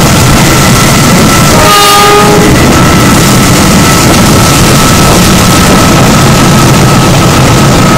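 Passenger train running along, heard from inside a carriage: a loud steady rumble and rush with a faint steady whine. About two seconds in, a short horn sounds and its pitch sags slightly.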